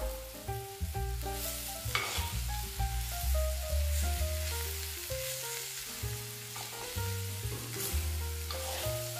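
Chicken, onions and green chillies sizzling as they fry in a clay pot, stirred with a metal spoon that scrapes the pot a few times. Soft background music with a melody and bass line plays under it.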